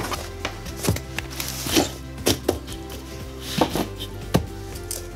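Stacks of flattened cardboard mailer boxes being knocked and pressed together on a wooden floor: a string of irregular dull knocks, about two a second. Soft background music plays underneath.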